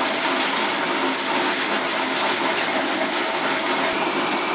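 Small electric food processor with an S-shaped blade running steadily, chopping soaked walnuts and dried apricots together into a coarse paste.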